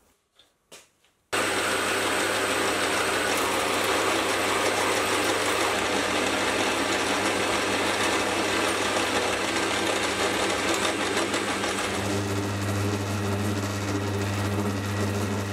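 Metal lathe running as it turns down the end of a metal shaft, starting about a second in. It makes a steady motor hum under the hiss of the cut, and the hum grows stronger about twelve seconds in.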